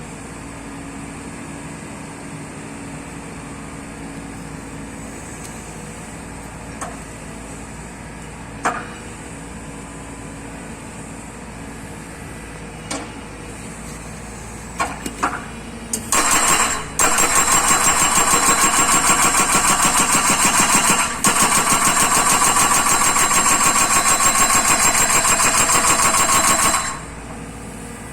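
Hydraulic breaker on a Hyundai Robex 140W-7 wheeled excavator, newly fitted and on trial. After some scattered single knocks, it hammers in a loud, rapid, even run of blows for about ten seconds, with a brief pause midway. The excavator's engine runs steadily underneath.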